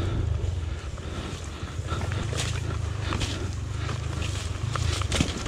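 Tornado 300cc trail bike's single-cylinder four-stroke engine running at low, uneven revs, with scattered clicks and knocks over it.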